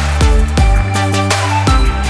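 Background electronic music with heavy bass and a steady beat.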